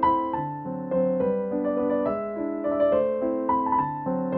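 Background music: a keyboard tune of struck notes over chords, each note fading after it is played.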